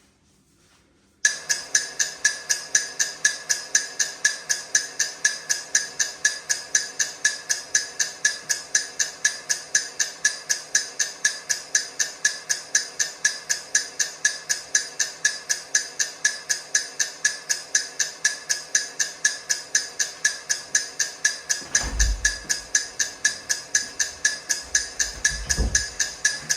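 Countdown timer ticking, a sharp, even tick about three times a second that starts suddenly about a second in. Two brief low rumbles come in under the ticking near the end.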